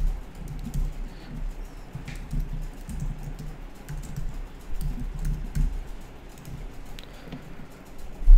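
Computer keyboard typing in short runs of keystrokes over a low hum, with one louder knock near the end.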